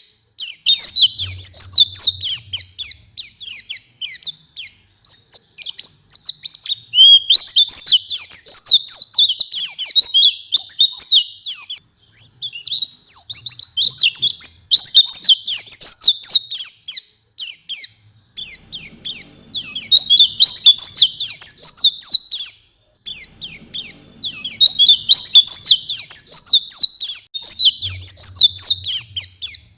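White-eye (pleci) in full song: a fast, continuous chatter of rapid high chirps and trills, in bouts of several seconds broken by brief pauses.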